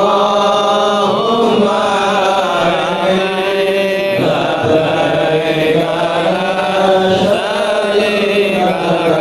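Islamic devotional chanting by voices, sung in long held notes whose pitch slowly bends and wavers, without a break.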